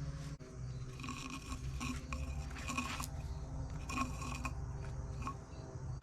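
Metal hand tools scraping and clinking against valve-train parts of an engine cylinder head in a run of short, irregular strokes, some with a brief metallic ring, over a steady low hum.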